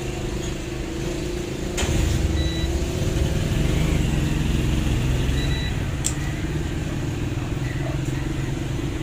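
Steady low engine-like rumble, like a motor vehicle running nearby, swelling for a few seconds about two seconds in. Two sharp clicks and a few short, faint high beeps.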